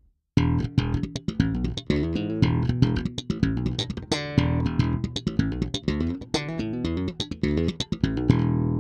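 Aquilina Sirius 4 active four-string electric bass, with an ash body, maple neck and Delano pickups, played solo in a quick run of notes with sharp, bright attacks, ending on a held note that rings out.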